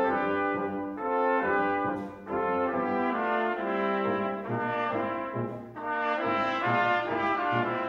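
Small brass ensemble with trombone and tuba playing chamber music in harmony: several parts move together in a mix of short notes and longer held chords.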